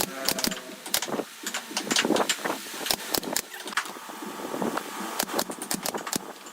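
Irregular clicks and knocks of wooden boards and tools being handled, with a faint steady hum behind them.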